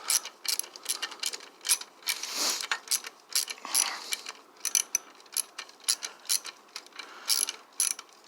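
Hand tool clicking irregularly, a few sharp metallic clicks a second, as a screw is worked loose from a garbage disposal's housing.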